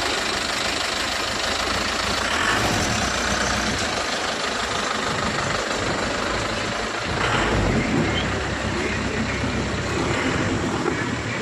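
A motor vehicle on the move: its engine runs steadily under a continuous wash of road noise, getting a little louder for a moment about seven seconds in.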